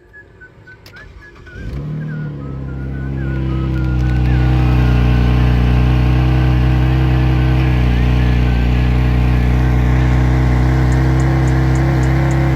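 A car engine starts about two seconds in and settles into a steady, loud idle with its exhaust note. A person whistles a wavering tune over it during the first half.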